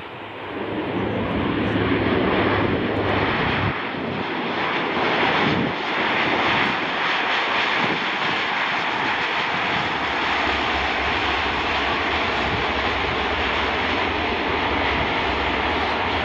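De Havilland Dash 8 Q400's twin turboprop engines and propellers running with a loud, steady drone as the aircraft rolls along the runway, growing louder about a second in.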